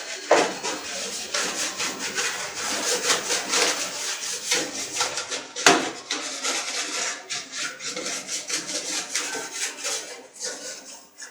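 A brush scrubbing the inside of a split air conditioner's indoor-unit part in rapid rasping strokes, with a sharp knock just after the start and another about six seconds in.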